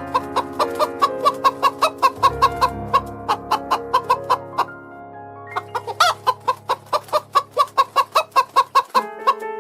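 Chicken clucking in a fast run of short clucks, about four a second, with a brief pause about halfway through, over steady background music.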